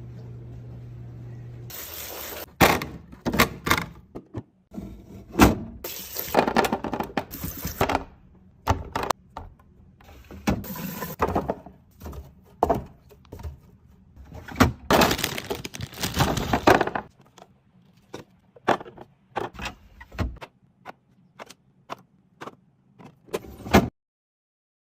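A fridge being restocked: a quick run of clinks and knocks as glass and plastic bottles and containers are set down, with rustling of packaging between them. A low hum runs for about the first two seconds.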